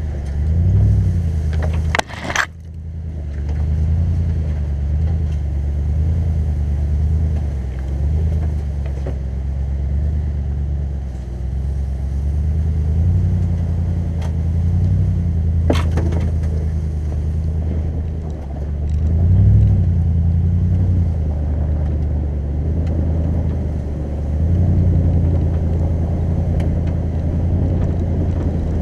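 Lexus GX 470's 4.7-litre V8 engine pulling at low speed over a snowy trail, its hum swelling and easing with the throttle and rising briefly past the midpoint. A sharp knock about two seconds in and a faint click later on.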